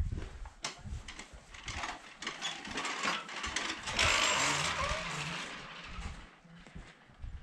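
A row of Buddhist prayer wheels spun by hand one after another, rattling and clicking on their spindles. The clatter is loudest around four seconds in.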